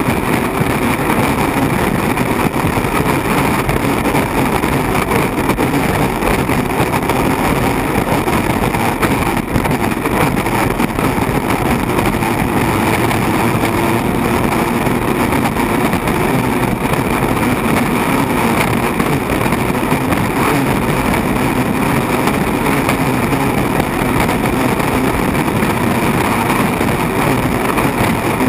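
Turbine-powered unlimited hydroplane running at racing speed, heard from inside the cockpit: a loud, steady din of the Lycoming T55 turbine mixed with rushing wind and water.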